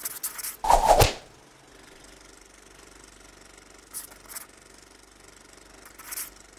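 Felt-tip marker scratching across a strip of masking tape in quick strokes during the first second, the loudest about a second in, followed by a few short, fainter scratches about four and six seconds in.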